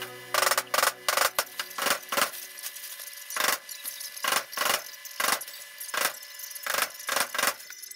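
Repeated hammer strikes on a wooden frame, fastening plastic sheeting: sharp knocks at about two or three a second, with short pauses between runs.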